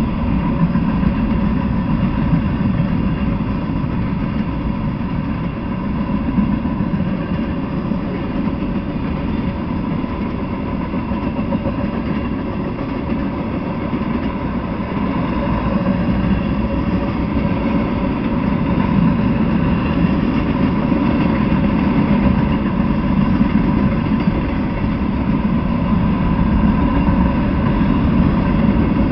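Freight train cars rolling past on the rails: a steady, continuous rumble with a faint steady hum running through it, growing slightly louder in the second half.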